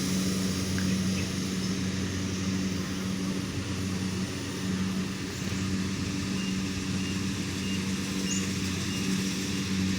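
Engine running steadily at a constant speed, an even low hum with an unchanging pitch.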